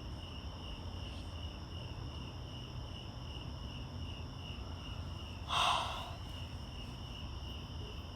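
Crickets chirping in a steady evening chorus, a pulsing high trill, over a low rumble. A short breathy puff stands out about five and a half seconds in.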